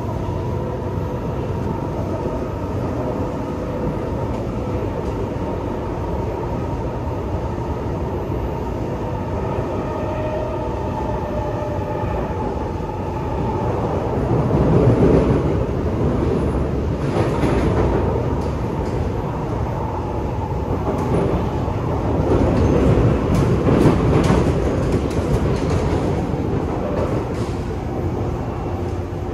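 Inside a Kawasaki Nippon Sharyo C751B MRT car running along the line: a steady rumble with a few held tones. From about halfway the rumble grows louder in swells, and sharp wheel clicks and rattles come through repeatedly near the end.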